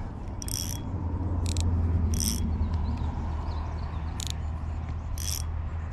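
Fishing reel being cranked in five short, uneven bursts of clicking, over a steady low rumble.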